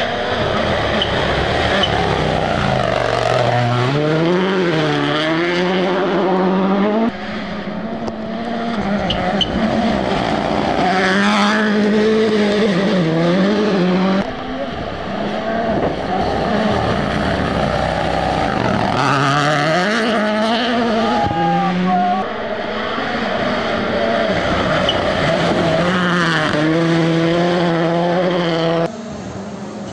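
Toyota Yaris Rally1 car's turbocharged four-cylinder engine revving hard, its pitch climbing and dropping over and over through gear changes and lifts. The sound breaks off abruptly and restarts about every seven or eight seconds.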